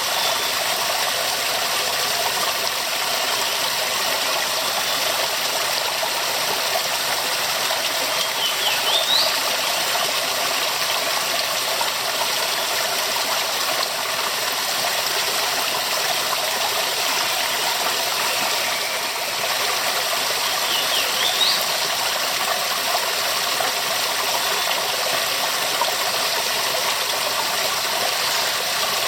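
Waterfall: a steady, unbroken rush of falling water, with a short high rising chirp heard faintly about every twelve seconds.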